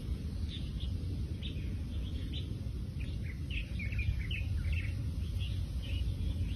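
Small birds chirping, short high calls scattered throughout and busiest about halfway through, over a steady low rumble.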